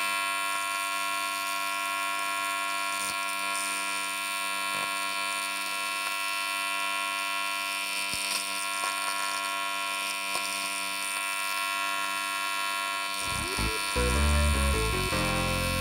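TIG welding arc buzzing with a steady, even hum while a long bead is run. Music comes in over it near the end.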